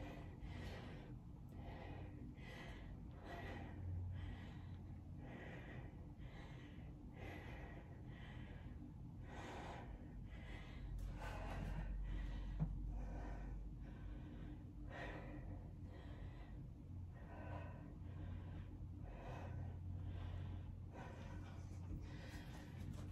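A woman breathing audibly in and out in a steady rhythm, about one to two breaths a second, with the effort of lifting dumbbells. A low steady hum runs underneath.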